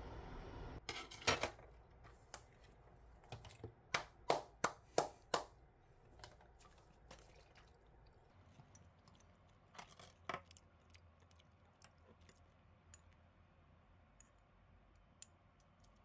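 Tableware being set out on a table: sharp clicks and clinks of dishes and a metal spoon touching down. There is a quick run of five clicks about four seconds in, a couple more around ten seconds, then only faint ticks.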